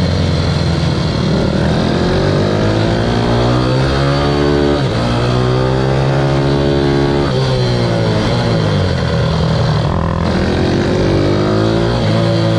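Ohvale 160 minibike's single-cylinder four-stroke engine, heard from onboard, revving up hard through two upshifts with a short drop in pitch at each. About eight seconds in the revs fall away as the bike slows for a corner, then climb again near the end.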